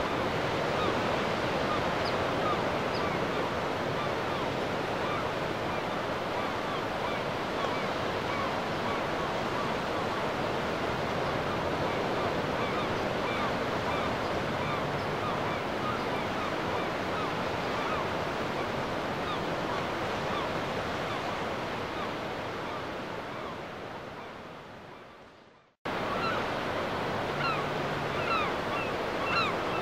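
Steady rush of sea water and wind from a sailboat under way, with scattered short high chirps. It fades out about three-quarters of the way through, and after a brief silence a similar rush cuts back in with more frequent chirps.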